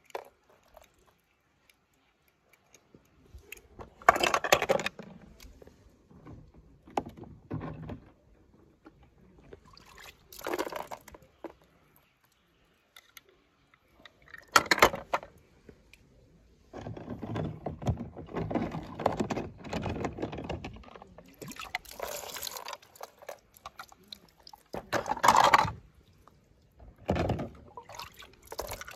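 Water splashing and sloshing as toy die-cast cars drop into it and are moved through it. The sound comes in separate bursts, with a longer stretch of sloshing in the middle.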